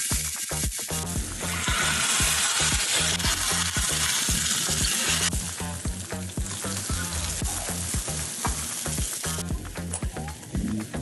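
Smash-burger beef patty sizzling on a hot iron griddle. The sizzle is loudest for a few seconds starting about one and a half seconds in, then settles to a quieter, steady frying.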